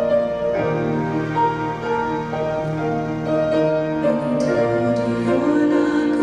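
Slow piano music with held chords and lower notes stepping underneath.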